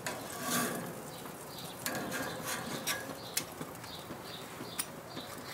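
Metal grill tongs clicking a few times against the grates and each other as burritos are turned on a gas grill, over a faint steady hiss.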